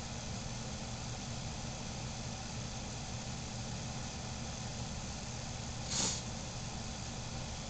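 Steady low mechanical hum of room background noise, with a brief hiss about six seconds in.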